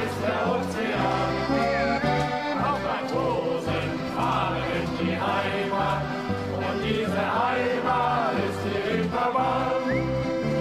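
Shanty choir singing a sea shanty, accompanied by accordion, guitars and bass guitar.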